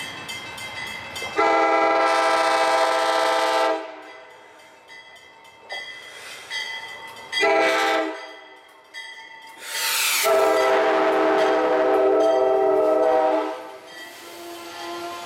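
Horn of an Amtrak ex-Metroliner cab car sounding loudly as the train approaches: a long blast, a short blast, then another long blast. After that comes the rumble of the passenger cars rolling past on the rails.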